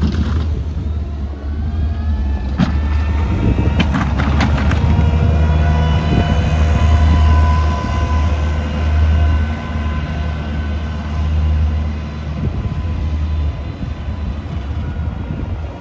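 Diesel engine of a compact wheel loader fitted with a front snow plow blade, running with a steady low drone and a whine above it as it drives past. A few sharp clanks come a few seconds in, and the engine drops away near the end as the machine moves off.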